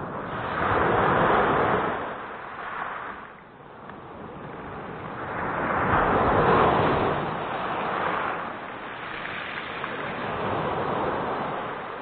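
Black Sea surf: waves breaking and washing in, swelling and fading three times.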